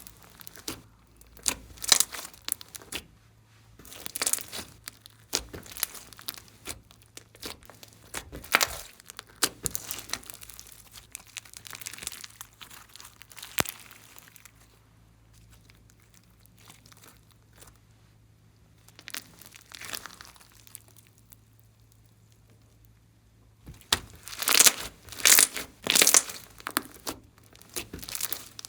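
Slime being squished, pressed and stretched by hand, giving irregular sticky crackling and popping. It goes much quieter for several seconds past the middle, then comes back with louder, denser squishing near the end.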